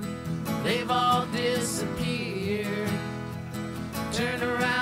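Background music in a country style with guitar, playing continuously as outro music.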